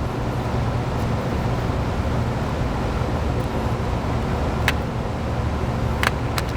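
Steady low rumble of background noise, with a few small sharp clicks near the end as the CR2450 coin-cell batteries and the welding helmet's plastic battery holder are handled.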